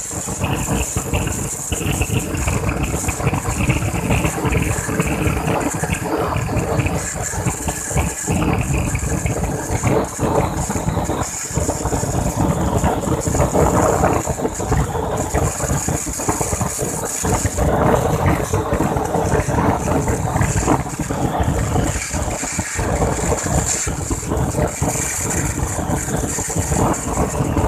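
CNC plate-cutting machine's torch cutting through steel plate: a steady, loud rushing hiss full of fine crackle, with a faint machine hum underneath.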